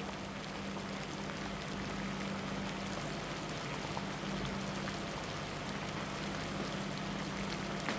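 Liquid bubbling at a steady boil in a frying pan on a gas stove, a continuous fizzing crackle, with a steady low hum underneath.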